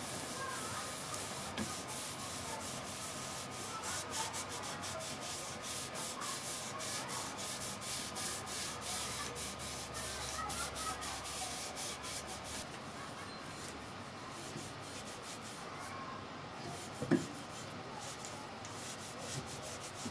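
A cloth rag rubbed back and forth over bare wood, wiping finish onto a small wooden box in quick repeated scratchy strokes that lighten after about 12 seconds. A single knock sounds near the end.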